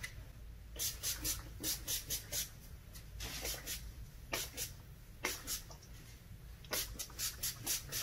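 Pump-mist bottle of Ion hair-protection spray misting onto damp hair in a long run of short sprays, fired in quick clusters of two to four with brief pauses between.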